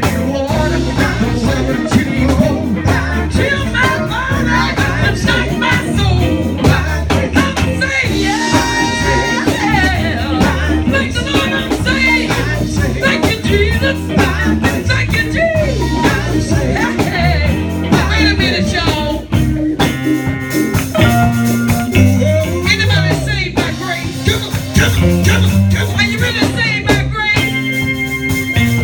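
A gospel song performed with singing over a band with bass and guitar.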